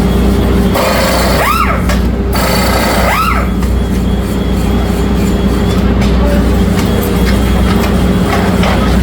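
Steady machine drone running throughout, with two short squeals that rise and fall in pitch about one and a half and three seconds in, over a stretch of hiss.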